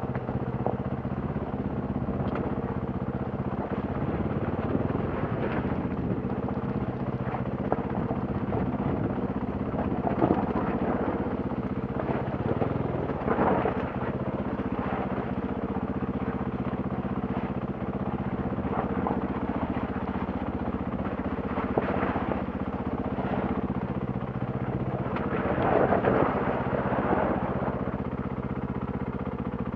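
KTM enduro motorcycle engine running steadily at low revs, with scattered short bursts of rough noise over it.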